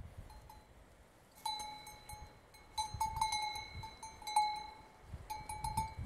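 Cowbell on a calf's collar clanking in irregular clusters of strikes, starting about a second and a half in, with its ringing tone hanging between strikes.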